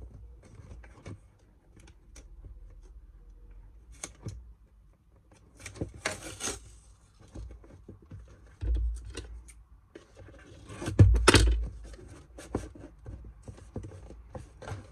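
Brown packing tape being pulled and torn from its roll and pressed onto a cardboard box, with paper rustling and scissor snips. There are several short rips, the loudest about eleven seconds in, together with a couple of dull knocks.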